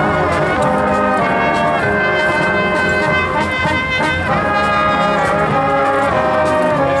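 Marching band playing as it marches: brass instruments hold long chords that change every second or two, over regular drum strokes.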